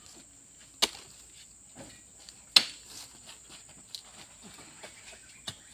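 Sharp knocks about every second and a half, four in all, the loudest in the middle: oil palm fruit bunches being speared on a spiked pole and tossed up into a truck's metal bed, one bunch at a time.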